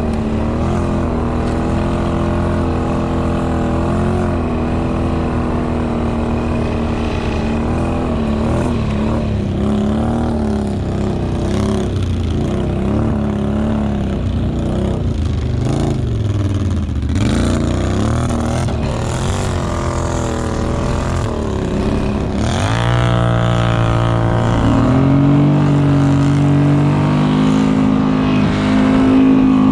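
ATV engine running under load with the revs rising and falling; about three-quarters of the way through it revs up sharply and then holds a higher, steady pitch.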